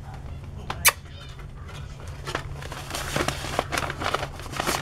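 A single sharp tap about a second in, then newspaper rustling and crackling with many small clicks as a Yorkshire terrier puppy moves about on it, over a steady low hum.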